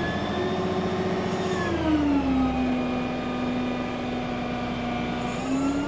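Diesel engine of heavy equipment running steadily. Its speed drops about two seconds in, holds lower, then picks up again near the end.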